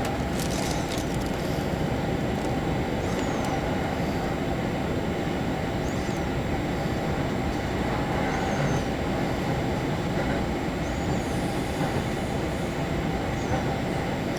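Running noise of a train heard from inside the passenger car: a steady rumble of wheels on the rails, with a few faint, brief squeals from the wheels.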